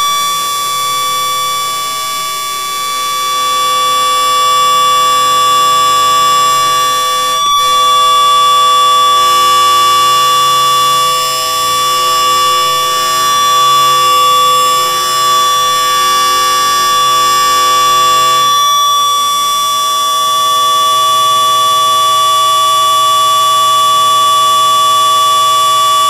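Live electronic drone music from a tabletop rig of electronics and effects pedals: a dense cluster of steady held tones, one high tone the loudest. The texture shifts slightly about seven seconds in and again about eighteen seconds in.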